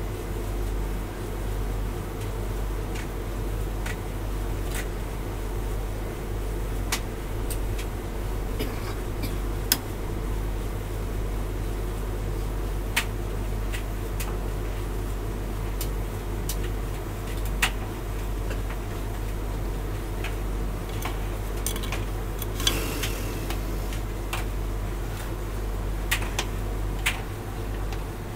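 Hotpoint tumble dryer running on high heat: a steady motor and fan hum with the drum turning, and irregular light clicks and knocks scattered through it as the load tumbles.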